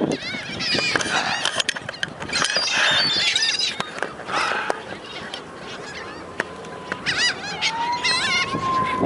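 Seagulls calling, with several loud squawking calls coming in bunches. A thin whine rises and then holds steady near the end.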